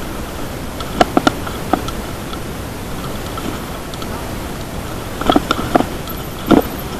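Mountain bike rolling over a rough dirt track, heard through a handlebar-mounted camera: a steady rushing noise broken by sharp knocks and rattles as the bike jolts. A cluster comes about a second in and another from about five seconds in, the loudest near the end.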